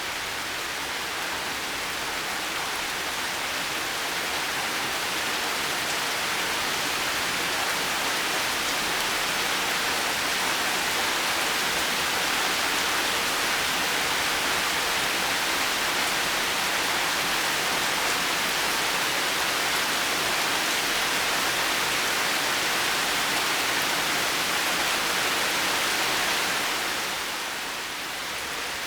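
Heavy rain falling steadily, a dense, even hiss that grows a little louder over the first several seconds and eases briefly near the end.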